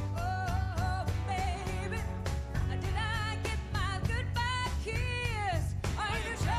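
A woman singing lead with vibrato over a live rock band of electric guitars, electric bass and drums; a long sung phrase falls in pitch near the end.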